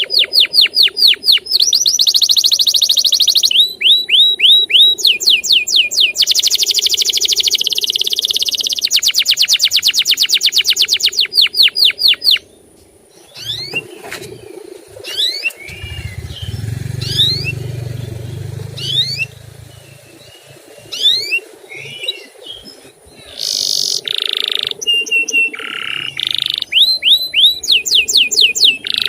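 Canary singing in fast rolling trills of rapidly repeated chirps. About halfway through it breaks off to a quieter stretch of scattered short whistles with a brief low rumble, then the trills start again near the end.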